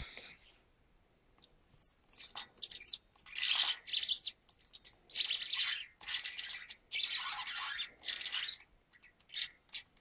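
Specialized Hi Lo 20mm hub squeaking in a run of irregular high chirps, starting about two seconds in and stopping near the end: a sign of dry seal O-rings that need grease.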